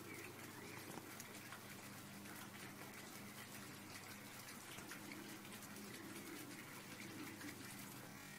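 Faint, steady background hiss with a low hum and scattered soft ticks.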